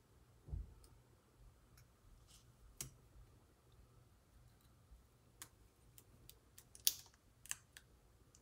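Faint, scattered small clicks and taps of a craft knife trimming a sticker along a plastic card held as a straightedge, with the sharpest click near the end and a dull bump about half a second in.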